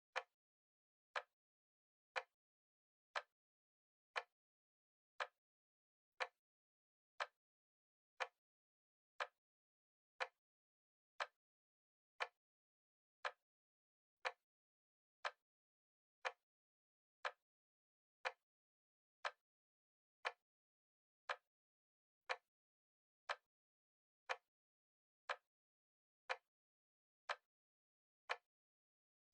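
Clock ticking one short, sharp tick a second as a countdown timer runs.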